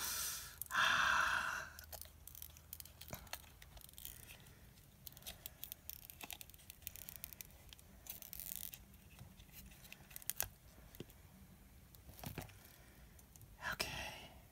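Hands handling a cured resin coaster: fingers rubbing and sliding over it with a scraping rustle in the first two seconds, then faint scattered taps and clicks, and another short rub near the end.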